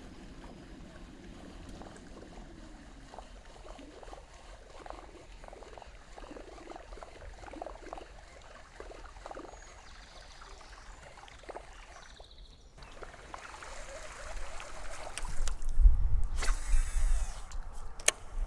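River water trickling and lapping softly around a kayak, with faint scattered drips. After a short break, a louder rushing noise with a low rumble rises for a couple of seconds near the end, with a few sharp clicks.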